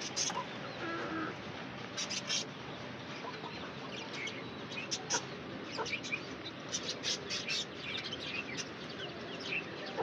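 Chickens clucking quietly, with scattered short chirps and sharp clicks.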